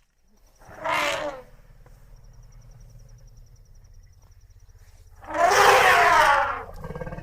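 Asian elephant calling twice: a short trumpet about a second in, then a longer, louder trumpet near the end, over a low steady rumble.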